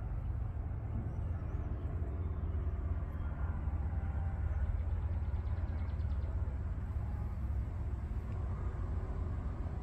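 Steady low rumble of wind buffeting the microphone outdoors, with no other sound standing out.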